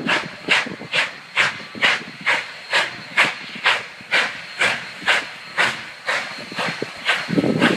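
Union Pacific 844, a 4-8-4 Northern-type steam locomotive, chuffing steadily as it approaches: sharp exhaust beats about twice a second, with a deeper rumble swelling near the end.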